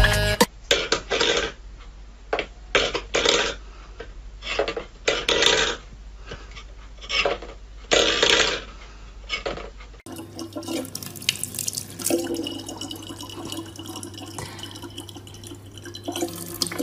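Water splashing in a string of short bursts, about one every half second to second; then, after a cut, a tap running steadily.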